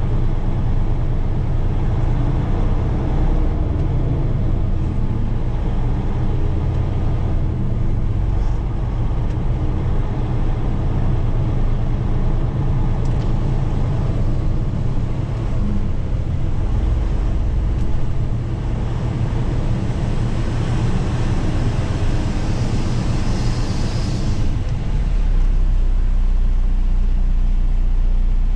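Semi truck's diesel engine running as the truck creeps forward slowly, heard from inside the cab. There is a brief hiss late on, after which the engine settles to a steady idle.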